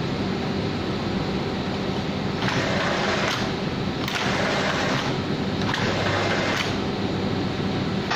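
Flatbed fabric screen-printing machine running with a steady mechanical hum while its dye-coated screen frame is raised; a louder rushing noise comes and goes several times from about two and a half to six and a half seconds in.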